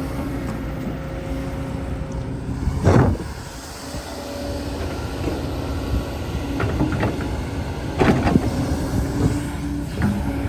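Excavator engine running steadily, with several sharp knocks and scrapes from the machine working the earth; the loudest comes about three seconds in.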